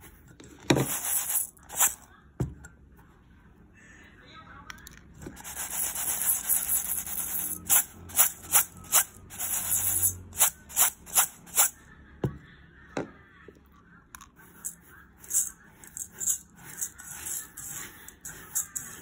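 Dry uncooked rice grains rustling and scraping in a stainless steel bowl as a hand stirs and picks through them to clean the rice. The sound comes in bursts with short pauses, and a run of sharp ticks falls around the middle.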